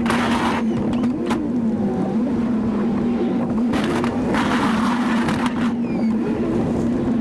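Pickup truck engine running steadily with slight changes in pitch. Several bursts of rushing, scraping noise come and go over it.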